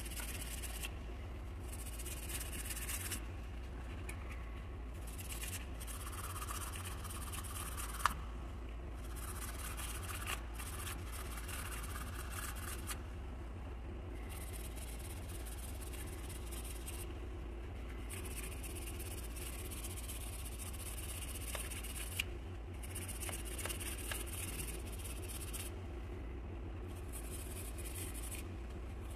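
A small block scraping and rubbing by hand against an aluminum plug, in runs of strokes broken by short pauses every few seconds, with a couple of sharp ticks.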